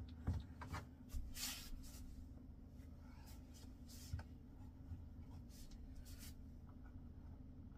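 Faint handling sounds at a pegboard: a few light knocks and clicks in the first second, a brief scratchy rustle, then scattered soft ticks as pegboard hooks and yarn are handled, over a low steady hum.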